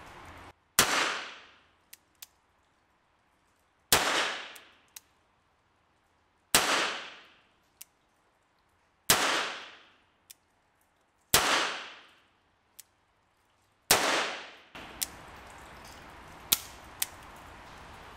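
Six shots from a Webley & Scott Mk IV pocket revolver in the low-powered .38 Smith & Wesson cartridge, fired about two and a half seconds apart. Each sharp report dies away over about a second, and a faint click sounds between most of the shots.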